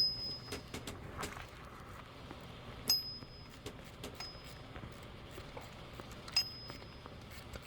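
Three sharp metallic clinks about three seconds apart, each with a brief high ring, among small scattered ticks: hand tools and sockets knocking against metal while working on the alternator bolts.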